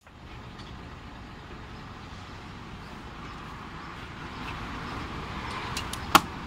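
Cargo strap being tightened with a hand lever strap tensioner on a truck: a steady rushing background noise with one sharp click near the end as the tensioner lever is swung.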